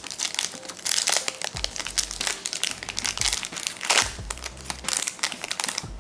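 Foil trading-card pack wrapper being torn open and crinkled by hand: a run of sharp crackles, loudest about a second in and again about four seconds in.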